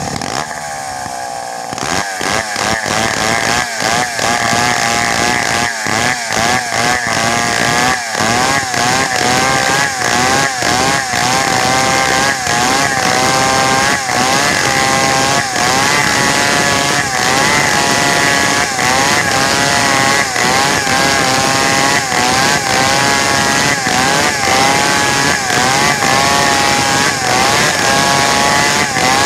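Two-stroke chainsaw running at low speed, then opened up to full throttle about two seconds in and held there as it rips lengthwise down a log to cut planks. Its pitch wavers and dips over and over under the load of the cut.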